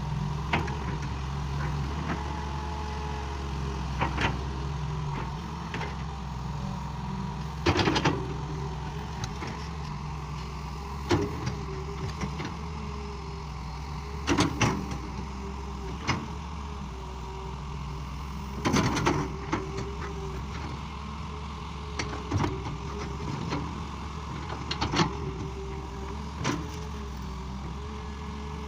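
Excavator working: its diesel engine runs steadily under a hydraulic whine that rises and falls as the machine moves, with about nine sharp knocks at irregular intervals.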